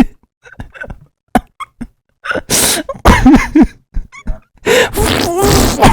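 A person laughing helplessly in wheezing, coughing fits, with hissing gasps for breath. After a nearly quiet stretch of about two seconds, the laughter bursts out again twice.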